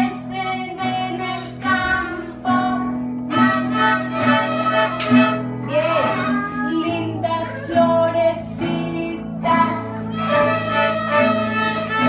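Young children singing a song together, accompanied by an acoustic guitar.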